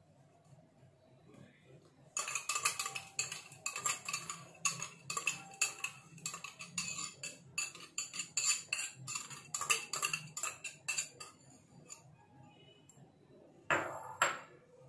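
A metal wire whisk beating yogurt in a plastic bowl, its wires clicking rapidly against the bowl for about nine seconds before it stops. A brief louder clatter comes near the end.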